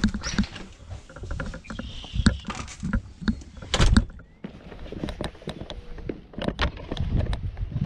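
Glass-paned French door being handled, with clicks and knocks, then pulled shut with a thump about four seconds in, followed by footsteps on a brick patio.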